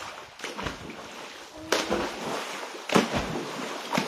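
Children splashing in shallow sea water: four sharp splashes about a second apart, with water sloshing in between.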